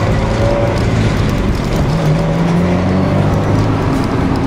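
Subaru Impreza STI's turbocharged flat-four engine and road noise, heard from inside the cabin while driving, the engine note dropping in pitch about three seconds in.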